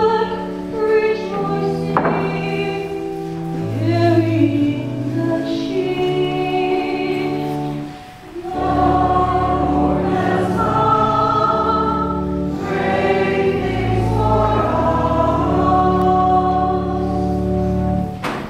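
Church choir singing a hymn over steady held low notes. There is a short break between phrases about eight seconds in, and the singing ends near the end.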